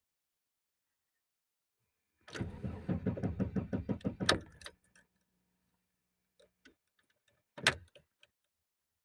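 VW Passat B5 engine cranking on the starter for about two and a half seconds without catching, a failed first start that the owner puts down to a faulty coolant temperature sensor. A few clicks follow, one sharp and loud near the end.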